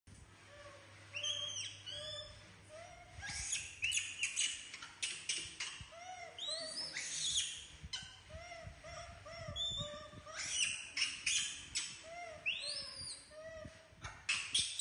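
Young macaque monkeys calling: many short, arched coos and higher-pitched squeals, one after another, with sharp clicks in between.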